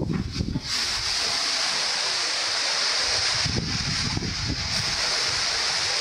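Strong gusty wind: a steady rushing hiss of wind through tree leaves, with low wind buffeting on the microphone at the start and again around the middle.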